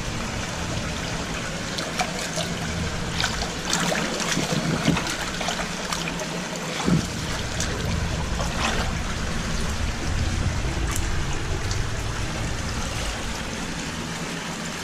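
Shallow creek water trickling, with scattered clicks and knocks.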